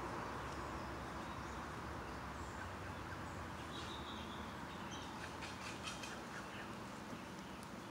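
Steady outdoor background noise with a few faint, short, high bird calls in the second half.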